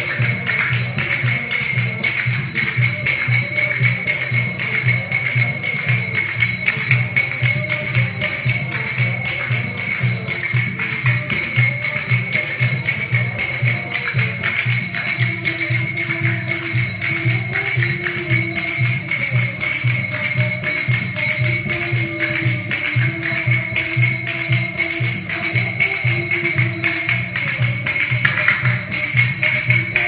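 Large finger cymbals (snujs, zills) struck in a steady, dense rhythm, each strike ringing bright and metallic, played over recorded belly dance music with a regular drum beat.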